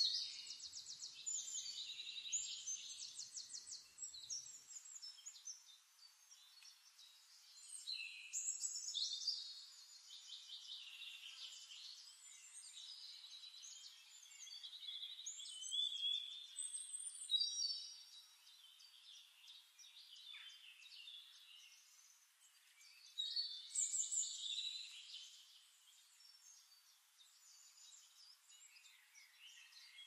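Songbirds singing: high-pitched phrases of rapid trills and chirps that come back about every seven to eight seconds, with a faint hiss between them.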